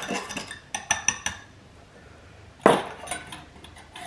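Kitchen utensils and dishes clinking: a few sharp, ringing clinks about a second in, then a louder knock near three seconds, like something set down on the counter, followed by a couple of lighter clinks.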